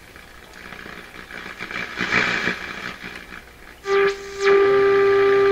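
Pye 39HC tube receiver's loudspeaker hissing and crackling as the set is tuned, then, about four seconds in, a steady buzzy tone with a few brief gliding whistles: the signal generator's modulated 455 kHz test signal coming straight through. This is a signal the 455 kHz trap should keep out.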